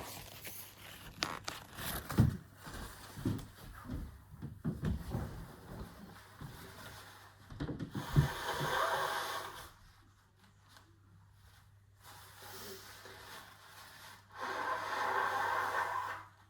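A person blowing their nose hard twice, each blow lasting under two seconds, about six seconds apart. Before the blows come scattered small knocks and handling noises.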